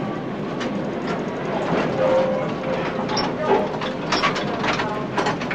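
Electric tram running along street track, heard from the driver's cab: a steady rumble with frequent rattles and knocks, a brief steady tone about two seconds in, and a sharp knock at the end.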